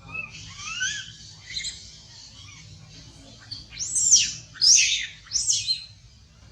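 Young macaques giving high-pitched squealing calls: a few short rising chirps in the first two seconds, then three loud arching squeals about four to six seconds in.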